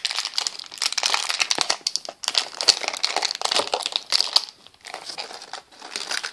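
Crinkly packaging handled and crumpled by hand: a dense, high crackle that stops briefly a few times.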